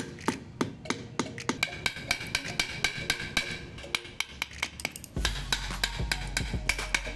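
Repeated sharp wooden knocks, about three a second, of a bamboo pole striking the back of a knife blade to split bamboo sticks, over background music; a steady low bass comes into the music about five seconds in.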